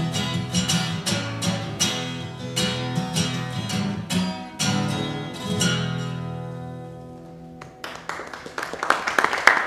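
Acoustic guitar strumming the closing chords of a song, ringing out and fading away. About eight seconds in, audience applause starts and grows louder.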